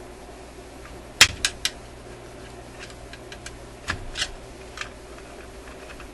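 A few sharp metallic clicks and taps from tools and small parts being handled on a tube radio's chassis: three in quick succession about a second in, then a few more past the middle. A steady low hum runs underneath.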